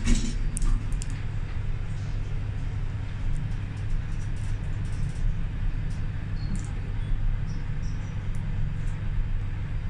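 Steady low rumble of a 1990s Fujitec traction lift car travelling down in its shaft, with a knock right at the start and a few faint clicks.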